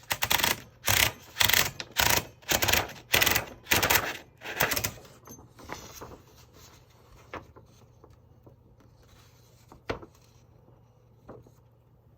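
Mignon Index Typewriter No 4 typing: a run of about ten loud, sharp strikes, roughly two a second, as each letter is printed. Fainter clicks of the mechanism follow, then two separate clicks near the end.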